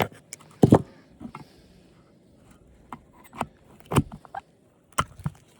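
Scattered clicks and knocks from prying at a clip and handling the plastic parts of an old television being taken apart, the loudest knock coming under a second in.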